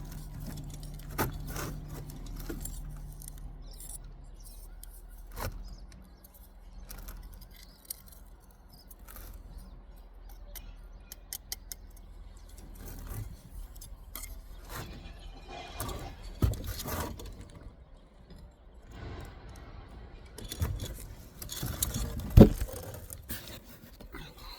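Metal brick ties clinking and rattling as they are handled and set into a brick chimney, with scattered scrapes and knocks of the work. A sharp knock near the end is the loudest sound.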